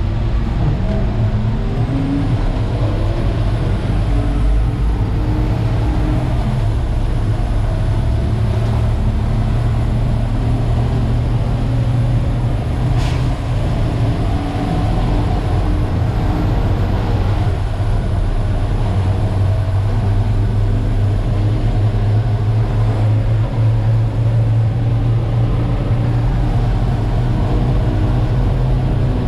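Terex FD4000 front-discharge concrete mixer truck running on the road with a steady, loud low drone from its diesel engine and drivetrain. The engine note rises in pitch over the first few seconds as the truck accelerates.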